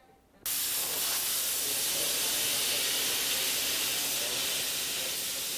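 Handheld angle grinder grinding steel, throwing sparks: a steady, hissing grind that cuts in suddenly about half a second in and runs on without letting up.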